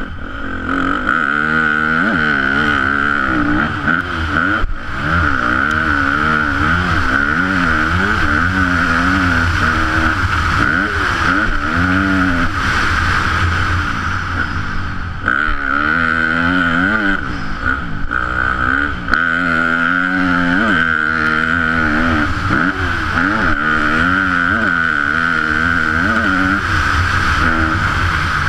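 Yamaha YZ250F's 250 cc four-stroke single-cylinder engine, heard from a helmet-mounted camera, revving up and dropping back again and again as the rider accelerates, shifts and rolls off around a motocross track.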